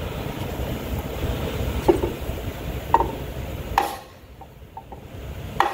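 Four sharp knocks about a second apart, from hands-on work on the underside of a Zamboni 546 ice resurfacer's conditioner with a wooden beam braced against it. A steady low rumble runs beneath them and drops away suddenly about four seconds in.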